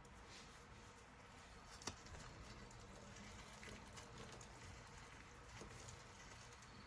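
Near silence: faint room tone with a few scattered soft clicks, one a little louder about two seconds in.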